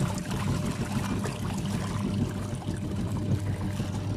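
Semi-automatic twin-tub washing machine's wash tub running, its pulsator churning soapy water, with a 'tak tak tak' ticking from the drive belt: the belt has been temporarily joined and the joint is uneven.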